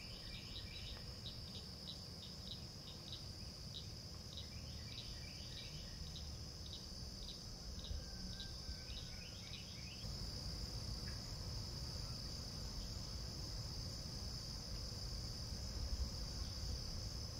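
Evening insect chorus: a steady high-pitched drone, with a run of short, quickly repeated chirps over the first ten seconds or so. The drone grows a little louder after that.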